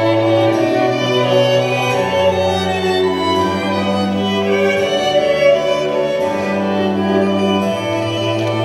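Slow string music, violins and cellos holding long notes over a bass line that shifts every couple of seconds, playing as the bride's processional.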